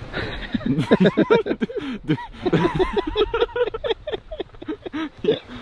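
People's voices talking and laughing, with no clear words.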